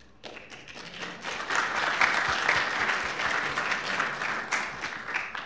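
Audience applauding at the end of a talk, swelling over the first second or so, then stopping abruptly near the end.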